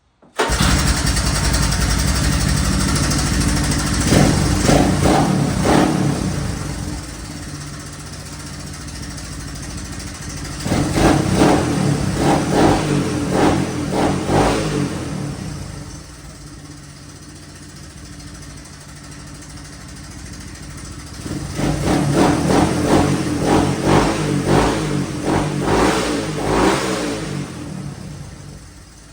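1981 Honda 185S's single-cylinder four-stroke engine starting suddenly, then idling and revved up three times for several seconds each, about 4, 11 and 22 seconds in. It is running with freshly adjusted ignition timing.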